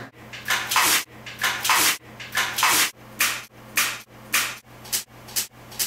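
Water from a hose sprayed in short, uneven hissing bursts about twice a second onto a person's face, over a faint steady low hum.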